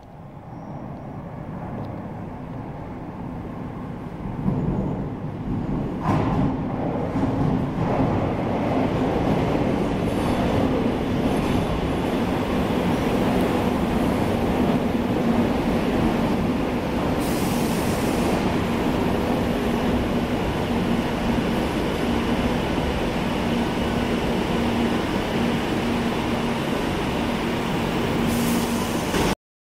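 Madrid Metro train running into the platform. Its rumble builds over the first few seconds, then holds loud and steady with a humming tone from the motors. There are two brief hisses of air, one about two-thirds through and one near the end, and the sound cuts off suddenly.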